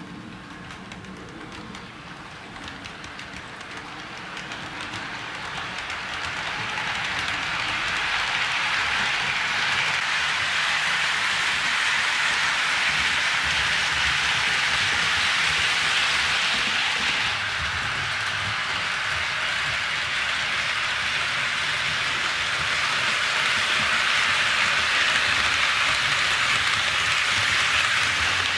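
HO scale model freight train rolling on sectional track: a steady, hiss-like rush of wheels on the rails. It grows louder over the first several seconds as the train nears, then holds steady.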